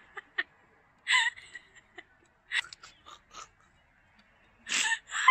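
A woman's stifled laughter: a few short gasping, whimpering bursts of breath through a hand held over her mouth, with pauses between them. The bursts are louder and closer together near the end.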